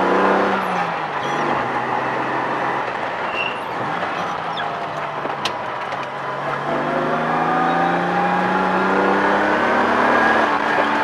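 A 1978 Datsun 280Z's straight-six engine heard from inside the cabin. Its revs fall over the first couple of seconds and hold low for a few seconds, then climb steadily from about six seconds in until near the end.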